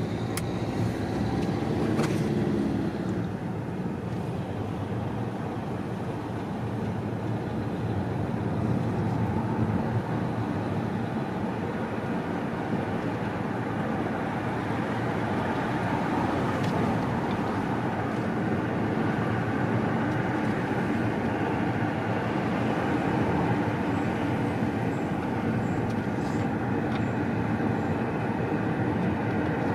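Steady road noise inside a moving car's cabin: tyres on the tarmac and the engine running while under way.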